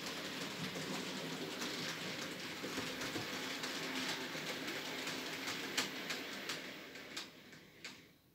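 TT-scale model train running on the layout's track: a steady rolling hiss with irregular clicks of wheels over rail joints and points, fading away over the last couple of seconds as the train runs off.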